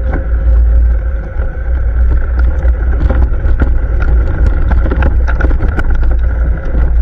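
ATV engine running under way with a heavy low rumble and a steady hum. Many short sharp knocks and rattles come through it, and it gets louder right at the start.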